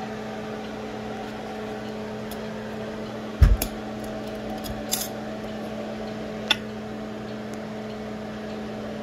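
Steady mechanical hum of a running motor or fan, with one heavy thump about three and a half seconds in and a few lighter sharp clicks over the next few seconds.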